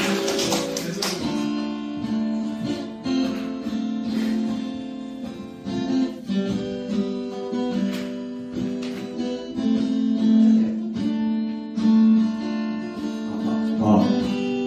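Acoustic guitar playing, plucked notes and strummed chords ringing on, with a new chord struck every second or two.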